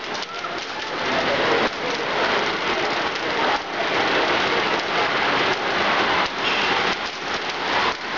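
Pennies rolling and spiralling around the steel bowl of a coin-vortex funnel: a dense, steady metallic rattle made of many small clicks.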